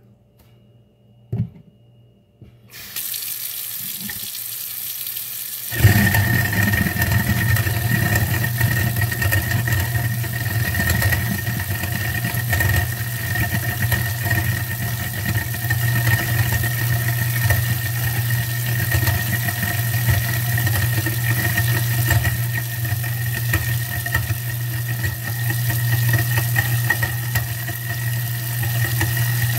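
Tap water starts running about three seconds in. About six seconds in, an InSinkErator Evolution XP 3/4 hp garbage disposal switches on and runs steadily with the water, grinding a lemon: a low hum with a thin high whine under the rush of water.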